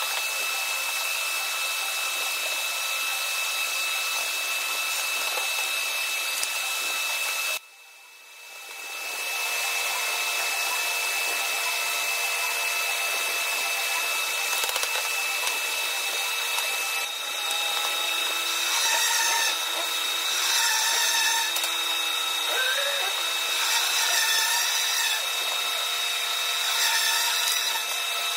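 Steady whir of workshop machinery with a few constant tones in it. It cuts out briefly about eight seconds in, then resumes. Faint wavering tones come and go over it in the second half.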